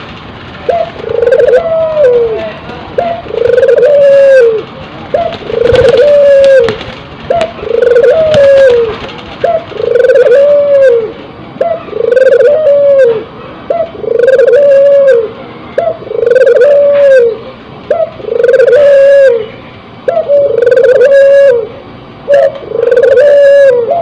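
Barbary dove (puter) cooing over and over: a long series of evenly spaced coos, about one every second and a half, each rising then falling in pitch.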